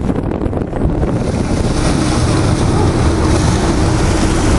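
Wind buffeting the microphone over the steady low rumble of a boat's engine and water churning at the stern. The hiss grows stronger about a second in.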